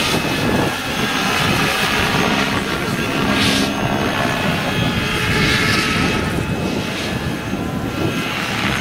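RC scale model of an AS 332M1 Super Puma helicopter flying overhead: steady rotor noise with a high motor whine, which includes its separate tail-rotor motor, swelling and easing a few times as it turns.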